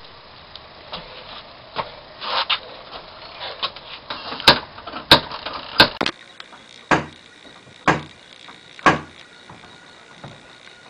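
Knocking on a front door: three sharp raps about halfway in, then three slower, duller knocks about a second apart. Faint scuffing comes before the first knocks.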